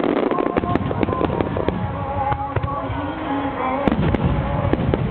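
Large fireworks display in full swing: shells bursting in a dense run of cracks and bangs, the sharpest about four seconds in, over music with a held melody.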